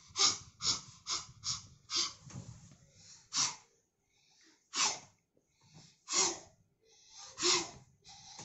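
A child doing yoga breathing exercises. He pants quickly through an open mouth for the first few seconds, about two to three breaths a second. Then he gives slower, forceful exhalations about every second and a half for tiger (vyaghra) breathing.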